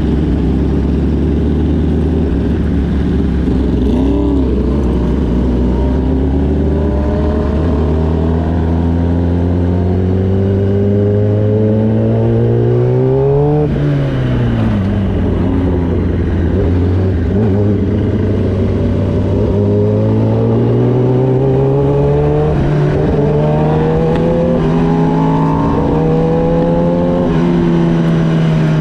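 Sport motorcycle engine running at road speed. Its pitch holds steady, then climbs slowly as the bike accelerates, drops sharply about halfway through as the throttle comes off, and rises again before settling into a steady high note.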